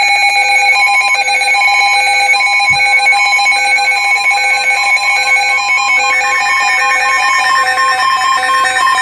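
Emergency Alert System attention signal: a loud, steady two-tone alarm, with a second set of short electronic beeps that alternate in pitch layered over it. A higher beep joins the pattern about six seconds in.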